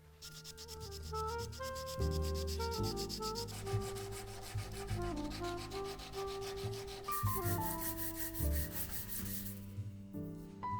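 Sanding of steel knife bolsters and liners: quick, evenly repeated rubbing strokes that stop about a second before the end, over background music.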